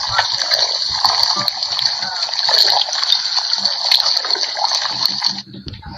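Stomach gurgling: continuous wet sloshing and squelching, dropping out briefly near the end.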